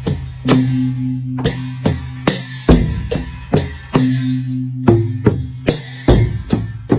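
Klong bucha, the large Lanna temple puja drum, beaten in a fast, uneven rhythm of about two to three sharp strokes a second over steady ringing tones. It is the signal for merit-making on the eve of the Buddhist holy day.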